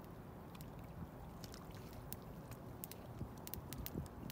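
Faint low rumble of riverside ambience, the water of the river and the air, with a scatter of small sharp clicks through it.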